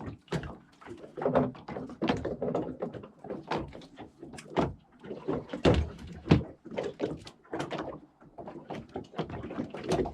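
Rapid, irregular knocks and thumps, many in quick succession.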